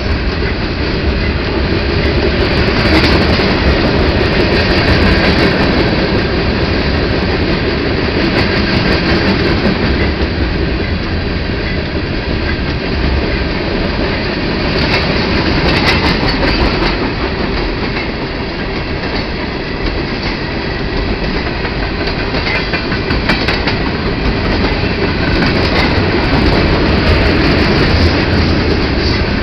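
Freight cars (covered hoppers and tank cars) rolling past close by: a steady, loud rumble of steel wheels on rail with a clickety-clack over the rail joints. A few spells of sharp, high-pitched clicking come through as the cars go by.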